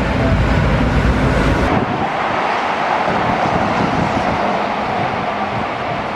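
Keihan 8000 series electric train running past, with wind rumbling on the microphone; about two seconds in the sound changes abruptly to a steadier, less rumbly running noise.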